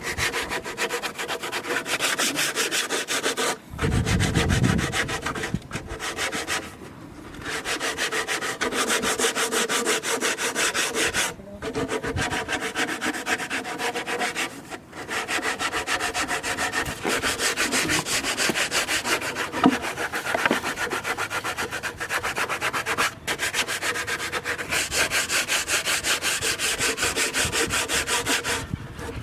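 Wood being worked by hand in rapid, evenly repeated rasping strokes, like sanding or sawing, in long runs broken by several short pauses.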